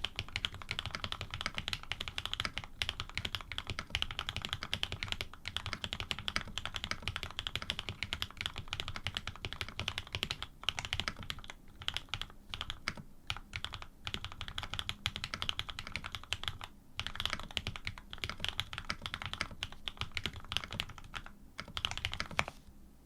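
Rapid typing on a custom AR87 tenkeyless mechanical keyboard fitted with lubed linear switches (Cream stems in Cherry housings), PBT keycaps and an aluminium plate: a dense run of keystroke clacks with a few short pauses about halfway through, stopping just before the end.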